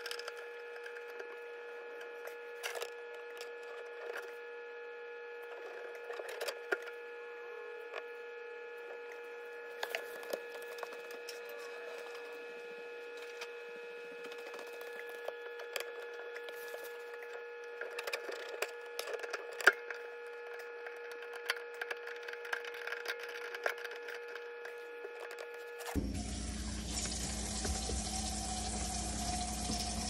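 Scattered light clicks and creaks of hands fitting and tightening plastic PVC sink drain pipes and slip nuts, over a steady hum. About 26 seconds in, it changes abruptly to a steady rush of water running through the sink drain for a leak test.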